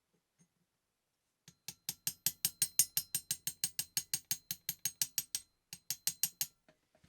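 Singer 15-class sewing machine mechanism running, a sharp regular click about five or six times a second, starting about a second and a half in, with a brief break near the end.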